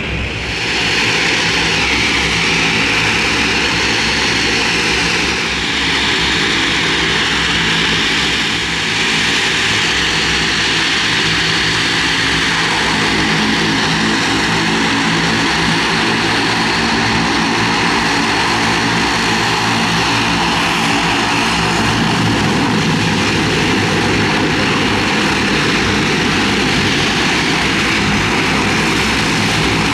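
Turboprop engines running steadily: at first a single-engine turboprop climbing away, then a Canadair CL-215T water bomber's two turboprops turning as it taxis, a steady propeller drone with a high turbine whine.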